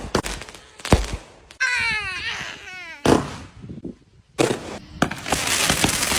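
Fireworks going off: several sharp bangs about a second apart, a high wavering sound falling in pitch in between, then steady dense crackling from about five seconds in.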